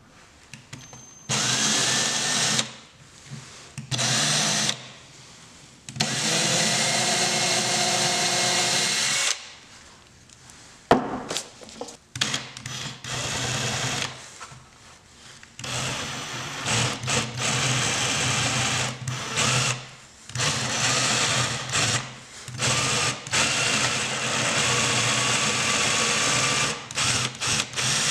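Electric drill boring a hole down into a small wooden knob, run in repeated bursts of a few seconds with the trigger let off between them. There is a pause about a third of the way in, broken by one sharp click.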